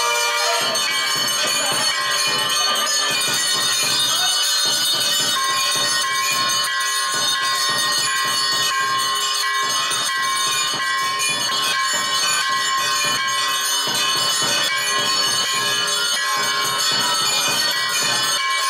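Bells ringing continuously, mixed with music, as at a temple pooja.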